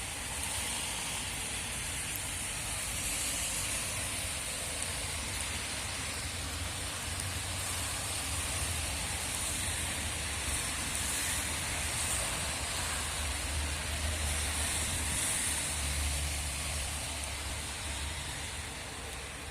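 Heavy rain pouring down steadily in a storm, with strong wind gusting and rumbling unevenly underneath.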